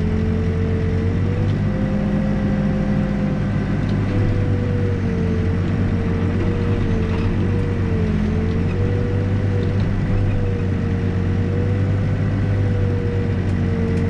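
New Holland backhoe's diesel engine running steadily under working load, with a high whine over the engine note whose pitch dips briefly a few times.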